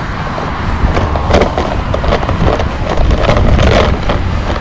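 Wind buffeting the microphone in a steady low rumble with a rough hiss. From about a second in comes a run of sharp knocks and rattles, several a second.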